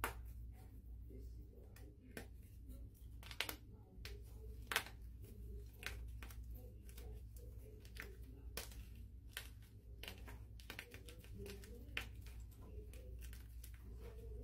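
Hands crushing and breaking a block of gym chalk into chunks: irregular crunches and sharp cracks, the loudest about three and a half and five seconds in. Very crunchy chalk that crumbles easily rather than resisting.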